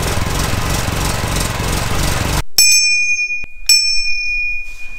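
Royal Enfield motorcycle engine running just after a cold start, cut off abruptly about two and a half seconds in. Then a small shrine bell is struck twice, about a second apart, each strike ringing on.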